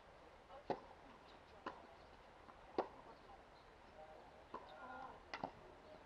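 Tennis rally: a ball struck back and forth with rackets, making a series of sharp pops about a second apart, some louder and some fainter.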